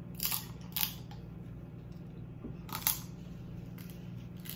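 Crab legs being eaten by hand: three short, sharp crackles of shell and mouth sounds, about a third of a second in, near one second and near three seconds.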